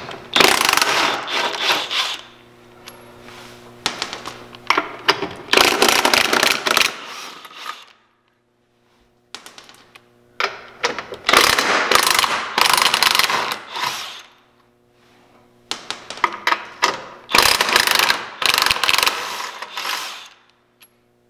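Cordless impact wrench hammering, in four runs of about two seconds each with short pauses between: it is backing out the 18 mm bolts that hold the stock rear radius rod plate of a UTV.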